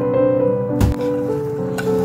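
Background music of sustained melodic notes, with a single short thump just under a second in.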